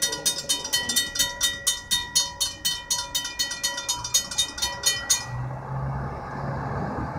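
Railroad crossing warning bell ringing rapidly, about four strokes a second, as the crossing gates rise. It cuts off suddenly a little after five seconds in, leaving a low steady engine hum.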